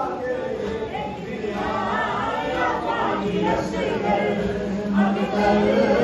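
A group of men's voices chanting a Muharram noha together in sung phrases of a second or two.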